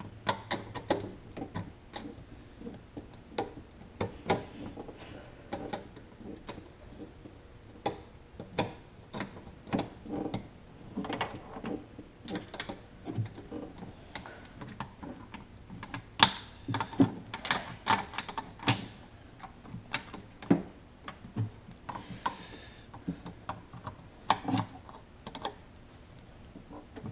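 Irregular small clicks, taps and knocks of hands and tools handling hoses, fittings and mounts in a Kawasaki JS550 jet ski's engine bay.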